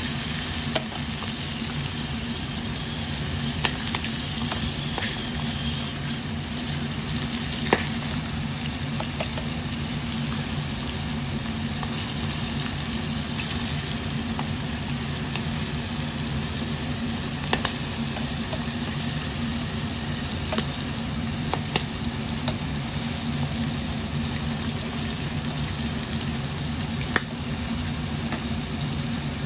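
Battered prawns deep-frying in hot oil, a steady sizzle with a few sharp clicks every several seconds.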